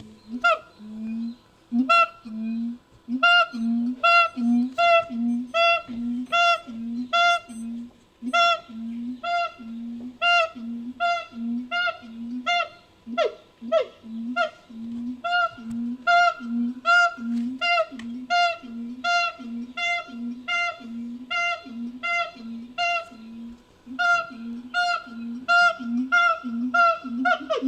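Siamang calls reworked into a creature sound effect: a long series of short, honking hoots, evenly spaced at about two a second.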